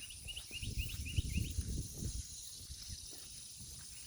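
Outdoor rural ambience: a steady high insect drone, a bird's quick run of short rising chirps in the first second and a half, and irregular low thumps and rumble.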